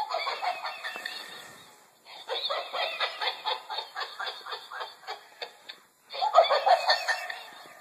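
Laughter in three bursts of rapid, pulsing chuckles, each lasting two to three seconds with short gaps between them.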